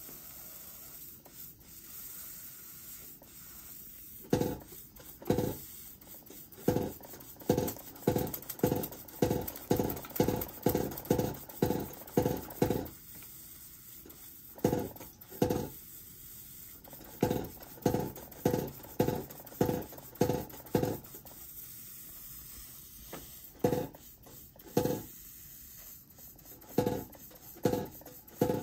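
Metallbaukasten-built toy hammer driven by a Märklin 4135 toy steam engine, striking over and over with a short ringing metal clang. The blows come a little under two a second and stop for a second or two several times before starting again.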